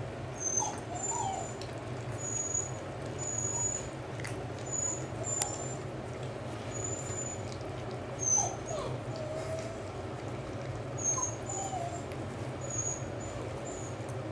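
Beagles whimpering: a few short, thin, squeaky whines that slide in pitch, scattered through, over a steady low hum.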